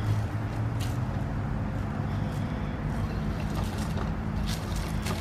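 HG P407 1/10 scale RC crawler's electric motor and gears whining steadily as it crawls over grass and leaf litter, with a few short crackles from leaves and twigs, about a second in and again near the end.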